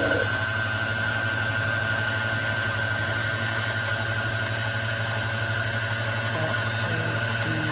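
Electric sewing machine motor running steadily at speed to wind thread onto the bobbin: an even hum with a thin, high, steady whine.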